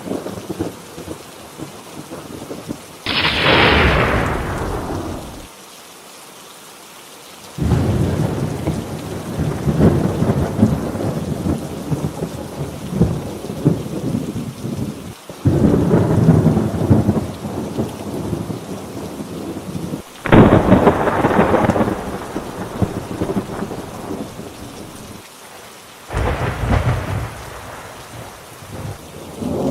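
Thunderstorm: about five loud thunderclaps, each starting suddenly and rolling off into a rumble over several seconds, over steady rain.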